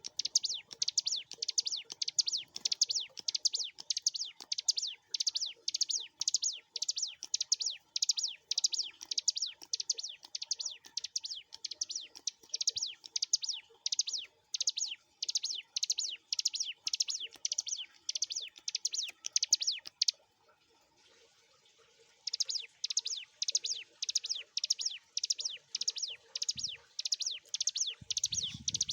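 Hill prinia (ciblek gunung) singing a fast, unbroken run of sharp high notes, about three a second, repeated over and over. The song stops for about two seconds about two-thirds of the way through, then resumes.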